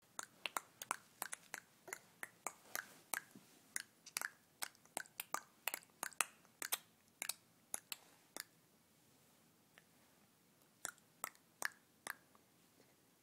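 A quick run of sharp mouth clicks, made by someone learning to make sounds with the mouth, about two or three a second and unevenly spaced. They stop for a couple of seconds after about two-thirds of the way through, then a few more follow near the end.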